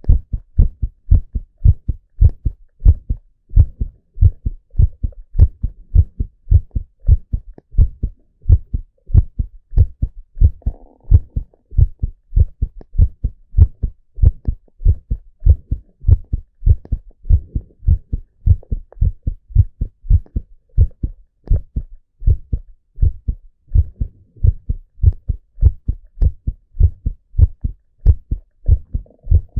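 A man's heartbeat heard close up: a steady, even rhythm of low thumps.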